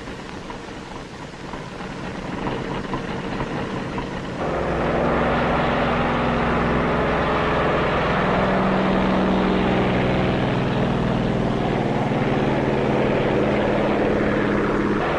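Propeller-driven carrier aircraft engines running in a steady drone. It jumps louder about four seconds in and holds, its pitch shifting slightly.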